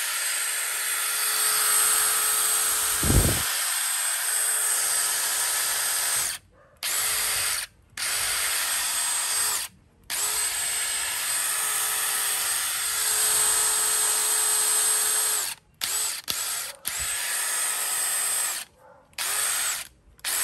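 DeWalt DCF809 20V brushless impact driver spinning free with no screw to drive, giving a steady motor whine. It runs for about six seconds, then in a string of shorter trigger pulls that start and cut off abruptly, the last few only about a second long.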